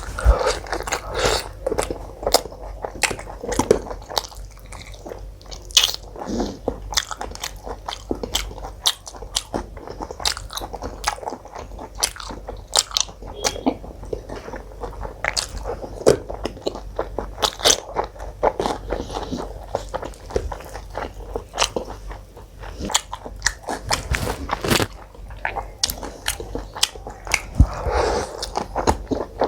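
Close-miked mouth sounds of a person eating: chewing and biting with many short wet smacks and crunches, food being torn and chewed in quick succession.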